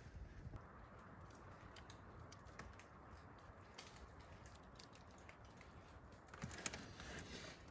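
Near silence with faint scattered clicks, and a soft rustle about six and a half seconds in.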